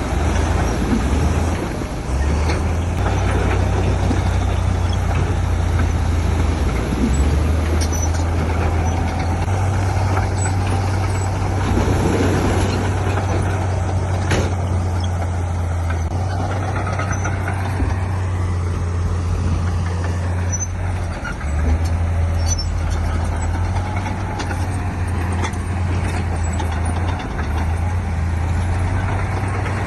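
Heavy diesel engines of a bulldozer and dump trucks running under shifting load, with a deep steady rumble. There is a short noisy swell about twelve seconds in and a sharp knock just after.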